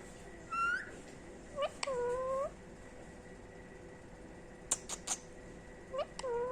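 Female Indian ringneck parakeet calling: a short gliding call about half a second in, a longer drawn-out call around two seconds, a few sharp clicks about five seconds in, and another brief call near the end.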